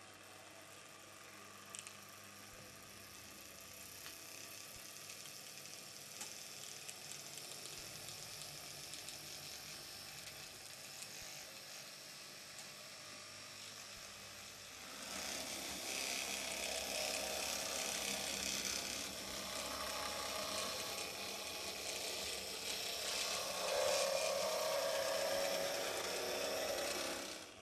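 Small electric drive of a 00-scale model Blackpool crossbench tram running along layout track: a steady mechanical whirr with light clicking and rattling from the gearing and wheels. It gets louder about halfway through.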